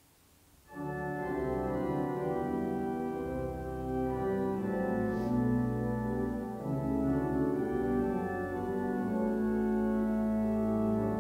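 Organ playing the introduction to a hymn in slow, sustained chords. It starts under a second in, after a brief hush.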